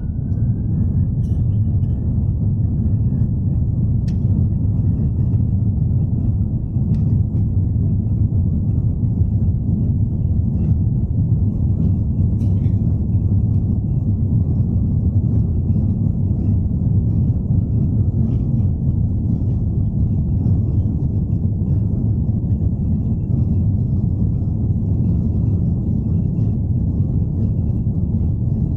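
Airbus A330 airliner's jet engines at takeoff thrust: a steady, loud rumble, with a faint whine that rises and levels off about a second in.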